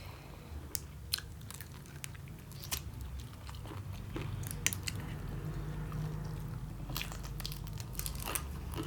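Close-miked chewing of king crab, with irregular sharp crunches and cracks from its hard shell.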